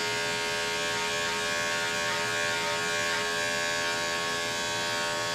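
Electric dog grooming clipper, an Andis five-speed, running steadily with an even, pitched hum while trimming the dog's coat.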